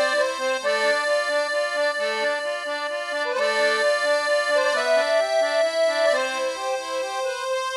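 Background music: an instrumental tune with long held melody notes over lower notes that change in steps.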